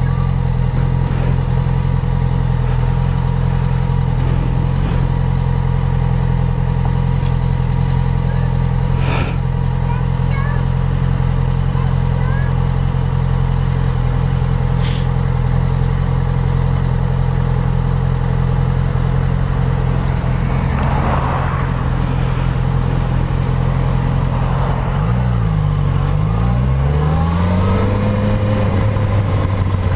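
Motorcycle engine running at a steady speed while riding. About 25 seconds in, the revs drop and then climb back up.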